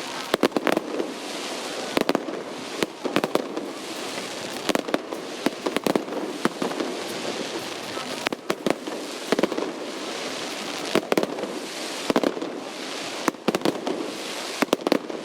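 Fireworks display going off: a rapid, irregular run of sharp bangs and shell bursts, many close together, over a constant crackling rumble.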